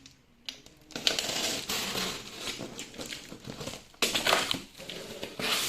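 Cardboard shipping box being opened by hand: rustling and scraping of cardboard starting about a second in, with a sharper, louder burst of it about four seconds in.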